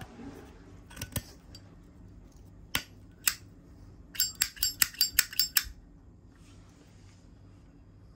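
Metal clicks and clinks of a chrome Zippo lighter being handled: a few single clicks, then a quick run of about eight ringing clinks.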